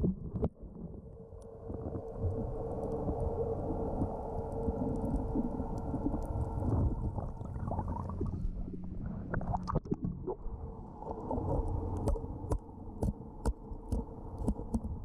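Underwater sound heard by a scuba diver: a low, muffled rumble of moving water with a steady boat motor hum carried through the water for most of the first half. Near the end comes a run of sharp clicks.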